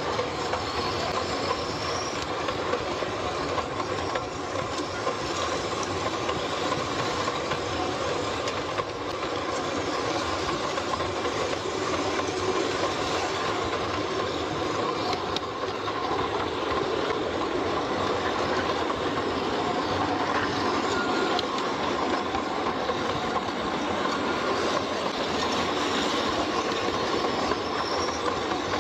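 A train running along its track: a steady rolling clatter of wheels on rails, with brief high wheel squeals near the start and near the end.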